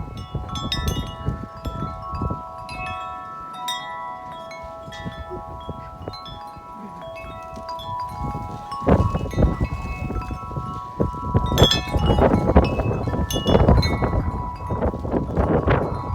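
Corinthian Bells 36-inch wind chime ringing, its tubes struck again and again in strong wind, with several overlapping tones hanging on. Wind buffets the microphone, much more heavily from about halfway through.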